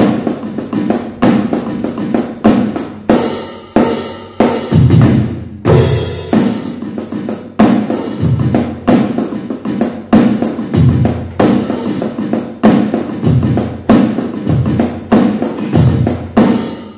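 Yamaha electronic drum kit's drum sounds played as a steady beat of kick and snare, a test of the HH65 hi-hat pedal after its force sensing resistor was replaced with a tactile switch.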